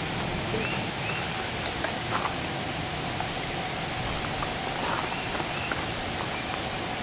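Steady outdoor hiss with faint scattered ticks as a small paintbrush dabs melted wax over the spawn holes of a shiitake log.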